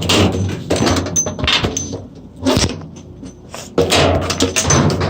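Rustling and clattering as a hose and other loose items are handled and put into the tub of an old washing machine, in two noisy bouts with a sharp knock between them.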